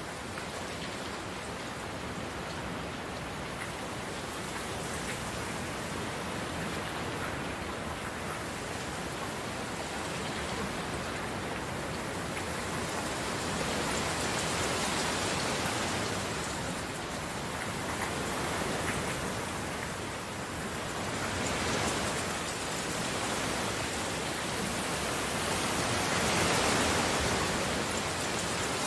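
Steady rain falling and pattering on surfaces, a dense even hiss that swells and eases in waves, heaviest about halfway through and again near the end.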